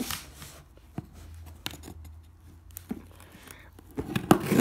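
A knife scraping and cutting along the packing-tape seal of a cardboard box. Scattered short scrapes and ticks build to a louder, longer scrape near the end.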